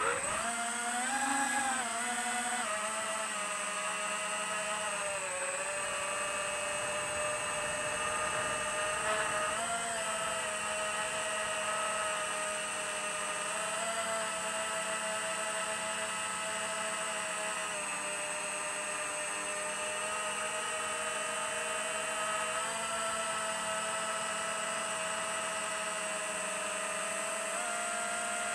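FPV racing quadcopter's motors and propellers whining in flight. The pitch climbs quickly at takeoff, then holds fairly steady with small rises and dips as the throttle changes.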